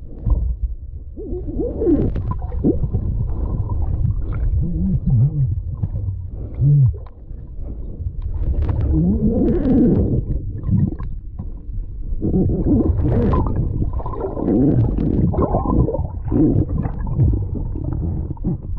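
Muffled underwater rumbling and gurgling of water and bubbles heard through an underwater camera housing as a snorkeler swims, with wavering low gurgles that come and go in surges.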